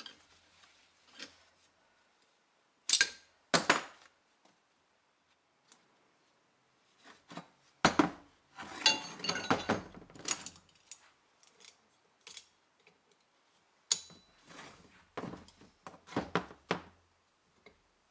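Metal vise parts and tools knocking and clanking against one another and the wooden workbench as they are handled: two sharp knocks about three seconds in, a busy run of clatter about eight to ten seconds in, and more knocks near the end.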